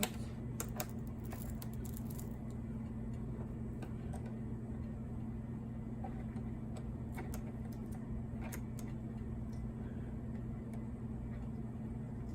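Scattered small clicks and taps of hands and a screwdriver working on a laptop's plastic case and screws during disassembly, over a steady low hum.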